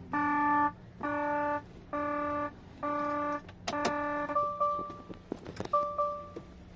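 Volvo FMX truck's dashboard warning buzzer beeping steadily about once a second, five beeps, while the cluster shows a red 'stop the vehicle' engine-system fault warning. From about four and a half seconds in it gives way to two shorter, higher chimes and a few clicks.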